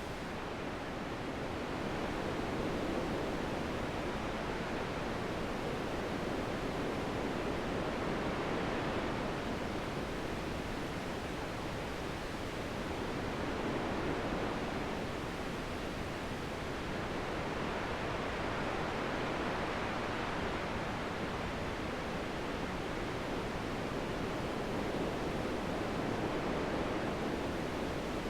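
Steady wind noise that swells and eases slowly every several seconds.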